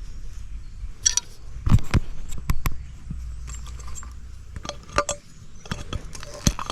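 Irregular metallic clinks and knocks of scrap parts and tools being handled while a floor scrubber is dismantled, with a dozen or so short sharp strikes a fraction of a second to a second apart.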